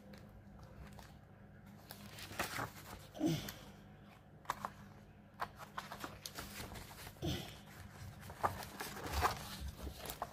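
Paper pages of a cross-stitch pattern booklet being turned and handled: intermittent soft rustles and light taps, with a faint steady low hum underneath.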